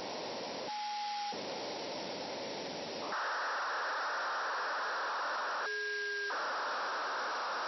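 Hiss and static from a HackRF software-defined radio's demodulated audio, receiving a 2 m satellite downlink. About three seconds in, the hiss shifts higher as the receiver is retuned. Twice the hiss briefly cuts out, leaving a short steady tone.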